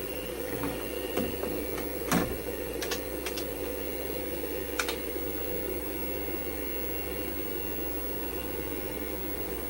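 Steady hum of a vintage IBM PC and its expansion unit running: power-supply fans and spinning drives. Five or so sharp keyboard key clicks in the first five seconds as the diagnostic test options are entered.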